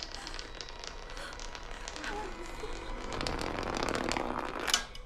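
Electrical crackling and popping, like a lightning effect, building slowly in loudness, with a sharp crack near the end.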